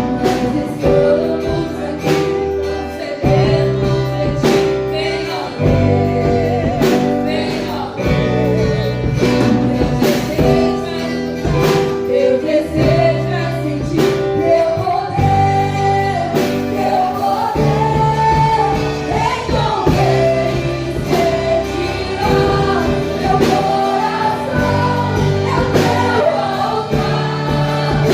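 Gospel worship song in Portuguese: singing over instrumental accompaniment with a steady beat.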